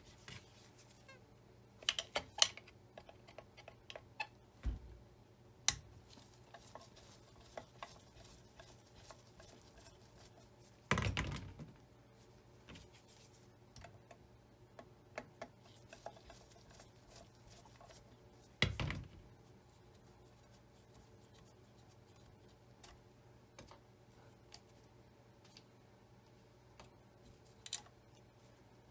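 Scattered small clicks and metallic taps from a screwdriver and hands working on the exposed metal mechanism of a Singer Featherweight 221 sewing machine, with two longer, louder knocks about eleven and nineteen seconds in.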